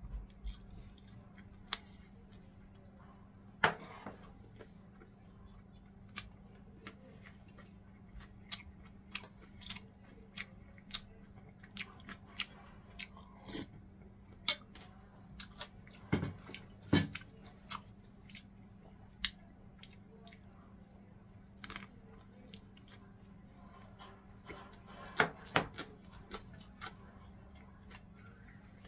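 Close-up chewing and mouth sounds of someone eating, with many small scattered clicks and a few louder knocks. A steady low hum runs underneath.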